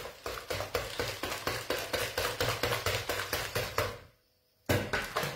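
Thick frying batter beaten by hand in a plastic bowl: quick, rhythmic wet slaps and knocks, about five a second, cutting out for about half a second some four seconds in.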